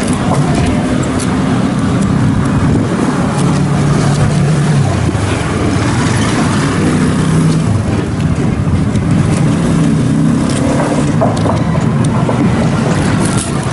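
Steady street traffic noise, led by a low engine hum from motor vehicles that shifts slowly in pitch.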